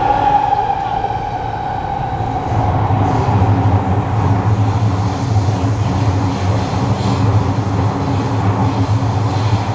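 Kawasaki Heavy Industries C151 metro train with GTO-VVVF traction equipment, heard from inside the carriage: the inverter whine fades out over the first two seconds. A steady low running rumble of the train moving through the tunnel is left.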